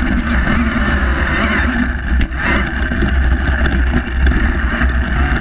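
Motocross bike running while ridden over dirt, with a steady engine note and heavy wind buffeting on the bike-mounted camera's microphone.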